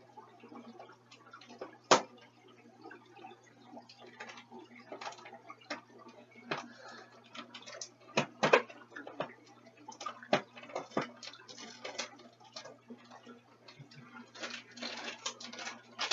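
Irregular clicks, taps and knocks of hands handling objects at a fish tank, the sharpest about two seconds in and a cluster around eight to nine seconds in, over a low steady hum.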